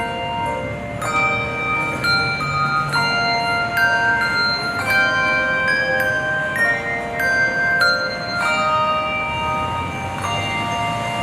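Handbell choir ringing a tune in chords: several bells struck together and left to ring, with new notes coming in about every half second to second.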